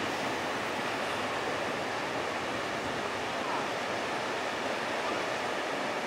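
Ocean surf breaking and washing, a steady even hiss with no single crash standing out.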